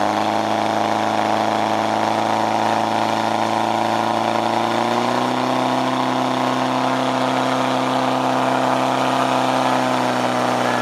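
Portable fire pump's engine running steadily at high revs while pumping water to the hose lines; its pitch steps up slightly about halfway through.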